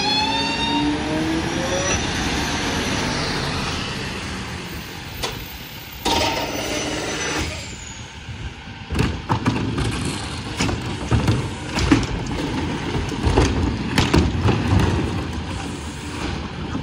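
Freightliner Econic garbage truck's engine pulling up, its pitch rising at first, then a burst of air hiss as the truck comes to a stop about six seconds in. After that comes a run of knocks and clatters from the wheeled trash carts being handled at the rear loader.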